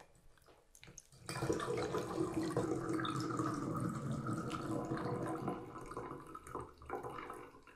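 Water kefir being poured from a glass jar through a sieve and stainless steel funnel into a brown glass bottle: a steady pour that starts about a second in, thins out, and stops near the end.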